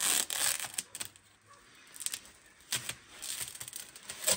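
A knife slitting open the woven plastic sack wrapped around a straw bale: rasping, rustling cutting strokes in a few bursts, one at the start, a longer one about three seconds in, and a short one near the end.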